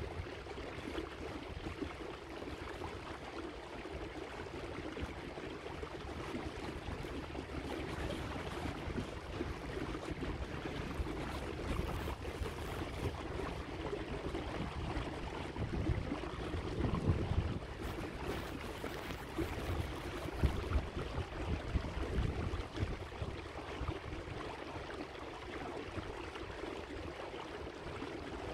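Water splashing and rushing along the hull of a small electric boat cruising slowly over choppy lake water. Low wind rumble on the microphone swells up in the middle.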